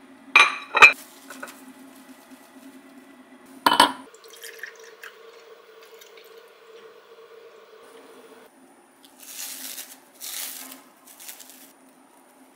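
Almond milk pouring from a glass bottle into a ribbed glass: a steady gurgling fill lasting about four seconds, after a few sharp glassy knocks at the start. Near the end there are two short crinkles from the sandwich's plastic wrap.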